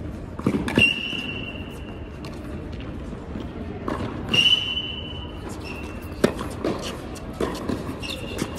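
Tennis rally on an indoor hard court: sharp hits of the ball off racquets and the court surface, with sneakers squeaking on the court, two long squeaks about a second in and near the middle, and shorter ones later.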